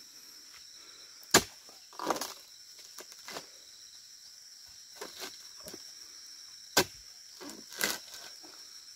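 Pole-mounted steel chisel chopping into the frond bases of an oil palm: a few sharp chops, the loudest about a second and a half in and another near seven seconds, with softer knocks and rustling of palm fronds between. A steady high insect drone runs underneath.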